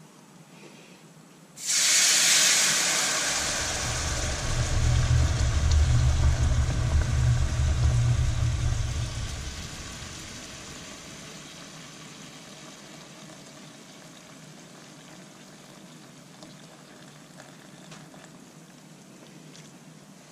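Coq au vin braising liquid poured into a hot frying pan of butter and flour roux. A sudden loud sizzle and hiss starts about a second and a half in, with a low rumble of the pour and boiling underneath. By about ten seconds it dies down to a soft steady sizzle.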